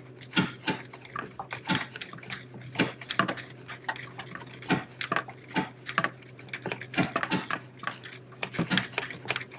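Hand ratchet tightening an alternator mounting bolt: irregular metallic clicks and clinks of the ratchet and tool against the bracket, a few each second.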